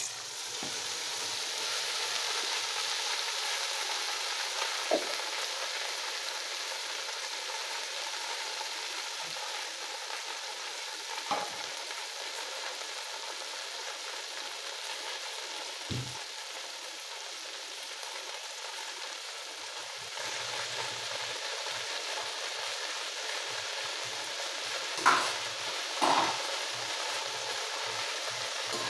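Okra frying in hot oil in a pan, with a steady sizzle that starts suddenly. A few sharp knocks of a stirring spoon against the pan come through it, the two loudest near the end.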